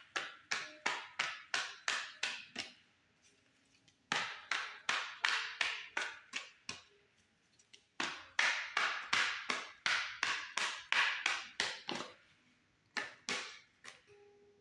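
A person clapping hands in quick, even runs of about four or five claps a second. There are three runs of a few seconds each, then two last claps near the end.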